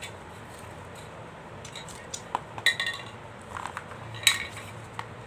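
Metal scissors handled on a wooden table: a few sharp clicks and clinks of the blades, the loudest about four seconds in.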